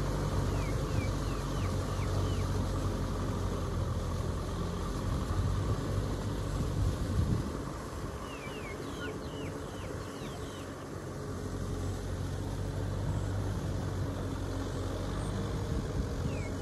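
Kubota M6040SU tractor's four-cylinder diesel engine running steadily under load as it tills a flooded rice paddy, growing quieter about halfway through as it pulls away. Short falling bird chirps sound over it near the start and again in the middle.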